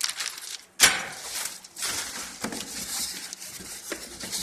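Packaging being handled as a boxed RC truck is unpacked: plastic and foam rustling and scraping, with one sharp knock about a second in.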